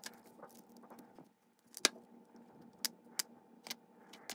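A handful of small, sharp plastic clicks and taps as an Athearn Blue Box model locomotive truck is pried open and taken apart by hand with a small screwdriver.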